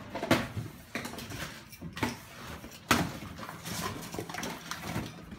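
Rummaging in a cardboard shipping carton: cardboard rustling and scraping, with several sharp knocks as small boxed lights are lifted out, the loudest about three seconds in.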